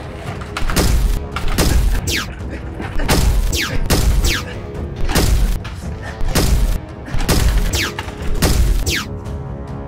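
Dramatic action background music with heavy bass drum hits about once a second, layered with sharp impact effects and falling whistling whooshes.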